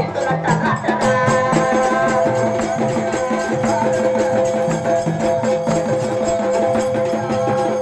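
Traditional Marathi folk music: a fast, even beat of drums and jingling percussion under long held melody notes that come in about a second in.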